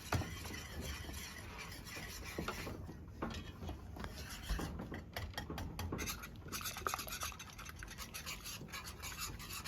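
A spoon stirring and scraping around the bottom of a pot of mango jam as it cooks down, a continuous run of quick rasping strokes with occasional knocks against the pot.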